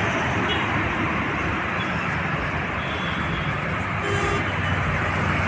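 Steady road traffic noise with a brief vehicle horn toot about four seconds in.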